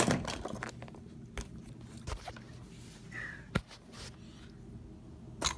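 Scattered clicks and light taps of hard plastic action figures and the handheld camera being moved about, with a sharper knock at the start and another just past the middle.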